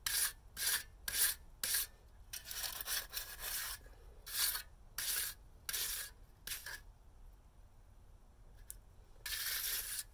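Flat steel trowel scraping across the top of a freshly poured wet concrete curb: a series of short rasping strokes, a pause about seven seconds in, then a longer stroke near the end. The trowel is flattening and finishing the surface after fresh mud was added to fill a low spot.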